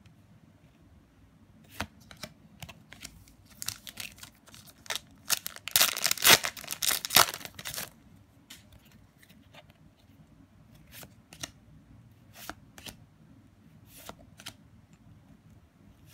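Trading cards handled and slid one by one, light clicks and flicks of card stock, with a louder stretch of crinkling and tearing about five to eight seconds in as a Buddyfight booster pack's wrapper is torn open.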